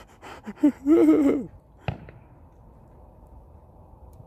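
A few murmured words, then a single sharp click about two seconds in, then a faint steady hiss.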